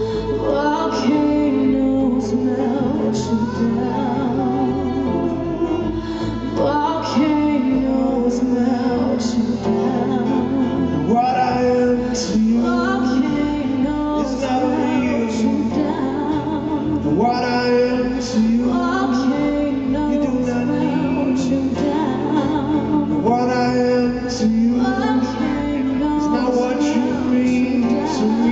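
Live acoustic guitar and singing: a pop-folk song played on a strummed acoustic guitar, with sung melodic phrases of a couple of seconds each carried over the guitar.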